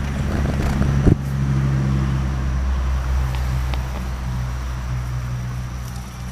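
A motor vehicle's engine running, a steady low hum that builds over the first two seconds and then slowly eases off, with one sharp knock about a second in.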